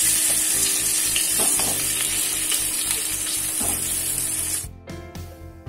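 Potato chunks sizzling as they fry in hot oil in an aluminium kadai, with a few soft knocks as more pieces go in. The sizzle cuts off suddenly near the end, leaving soft background music.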